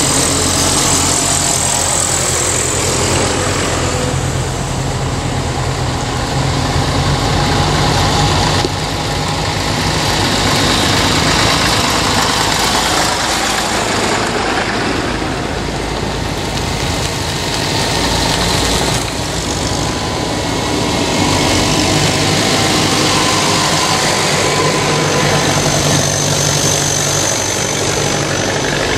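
Engines of vintage tractors running steadily as a line of them drives past one after another, with a small car passing among them partway through.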